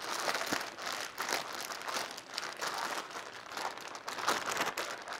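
Plastic zip-top bag crinkling and rustling as it is kneaded by hand, a pork roast and liquid marinade sealed inside.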